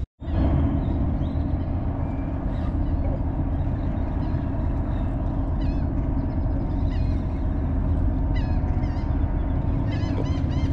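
Wind buffeting the microphone in a steady low rumble, with a faint steady hum underneath and small bird chirps now and then, more of them near the end.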